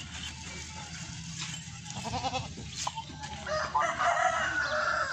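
A rooster crowing: one long, loud call near the end, the loudest sound here. A shorter wavering call comes about two seconds in.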